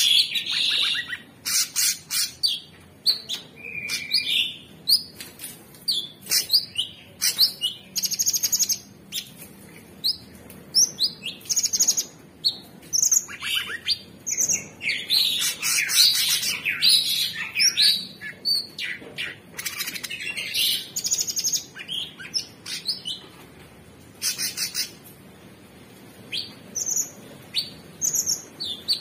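Male orange-bellied leafbird (cucak cungkok) in full song: a fast, varied string of short chirps, clicky notes and whistled sweeps. The bursts come thick through the middle and ease to a brief pause near the end.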